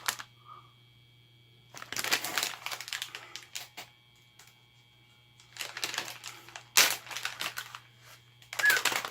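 Crinkling and rustling of a plastic bait package in a few irregular handling bursts as a pack of soft plastic lures is opened, with a sharper crackle about two-thirds of the way in; a low steady hum runs underneath.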